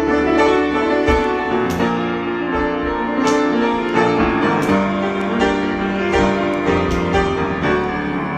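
Solo piano improvisation: sustained chords with new notes struck every half second or so, in a slow, free-flowing line.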